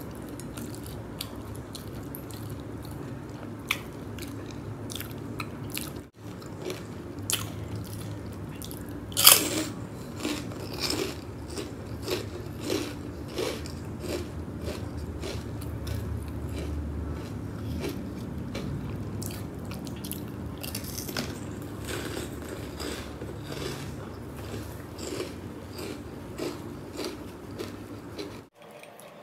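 Close-up eating sounds of a seafood boil: wet chewing and biting with many small crunches and clicks, and one louder sharp crunch about nine seconds in.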